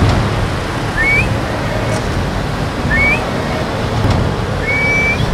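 Sound-effects bed of an animated intro: a steady rushing noise with short, high, rising squeaks about every two seconds and faint ticks between them.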